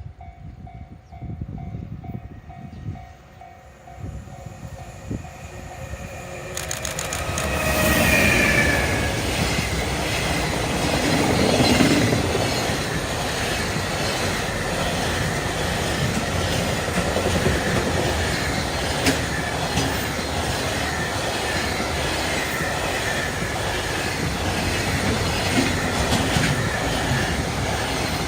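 Japanese level-crossing alarm ringing in a steady repeating pattern, then an EF210 electric locomotive and its freight train passing the crossing. The noise rises to a loud, steady rumble about eight seconds in, with the wheels clattering over the rail joints.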